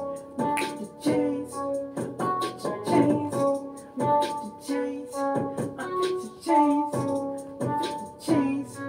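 Music: held keyboard chords over a steady, regular beat.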